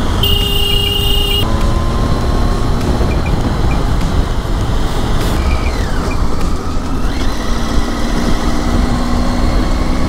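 Triumph Tiger 800 motorcycle's inline-three engine running at road speed under a steady rush of wind. A steady high tone sounds for about a second just after the start, and the engine note falls a little past halfway.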